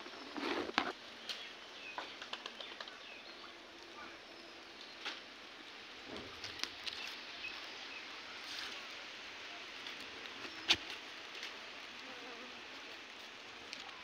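Quiet rural outdoor ambience with scattered light clicks and rustles, the loudest about a second in and again near the end, and a few faint high chirps in the background.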